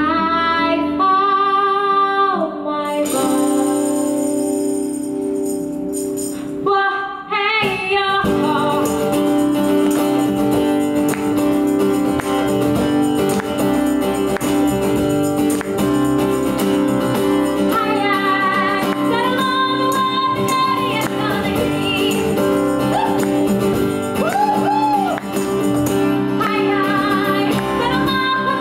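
Live pop song from a small band: a female lead singer over strummed acoustic guitar, with a tambourine shaken in time from about eight seconds in.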